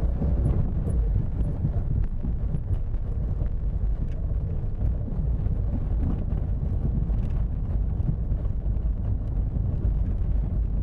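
Car driving over cobblestone paving, heard from inside the cabin: a steady low tyre rumble with a dense scatter of small knocks and rattles.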